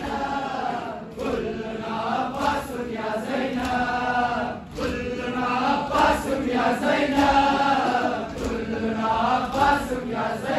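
Male voices chanting a noha, a Shia Muharram mourning lament, in long sung lines that bend in pitch.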